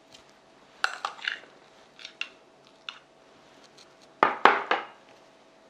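Spoon and dishware clinking and scraping as seasoning is spooned into a bowl. There are a few light clicks, then a louder run of knocks about four seconds in.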